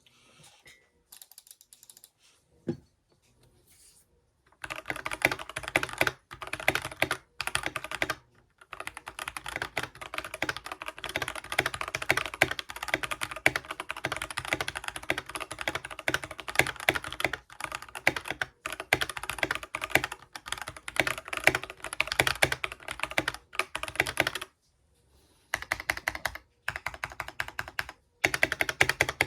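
Stock Keychron K6 Pro mechanical keyboard being typed on: a few faint taps, then fast continuous runs of keystrokes from about four and a half seconds in, broken by a few short pauses.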